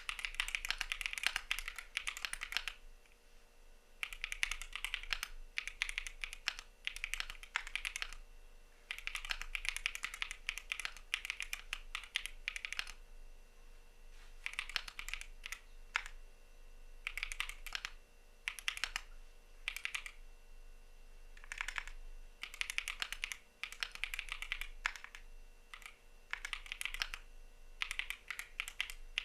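Typing on a CIDOO V75 mechanical keyboard: rapid keystroke clicks in runs of a few seconds, broken by brief pauses.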